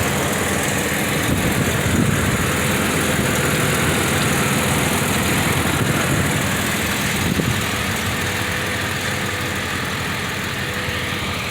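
Jeep Grand Cherokee ZJ engine idling steadily, shortly after starting up for the first time in five months of sitting.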